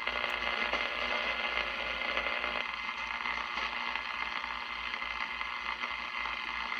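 Philco Predicta radio alarm clock's speaker giving steady static hiss with a faint thin whistle and a low pulsing hum: the set is tuned off station, between broadcasts.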